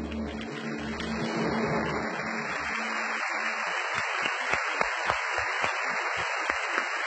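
Large audience applauding in a big hall, the applause swelling over the first second or two, with a few louder single claps standing out near the end.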